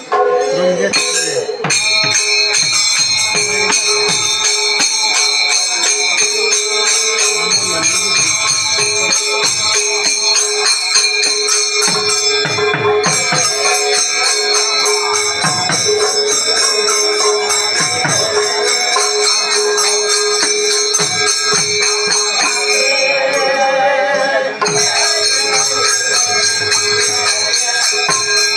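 Manipuri pung barrel drums played by a group of drummers in a circle, with irregular strokes over the continuous bright jingle and ring of metal cymbals and a held tone running through.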